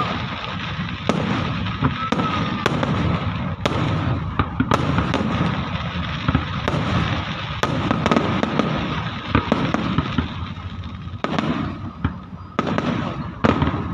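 Fireworks display: a dense, continuous crackle of bursting shells with a sharp bang roughly every second.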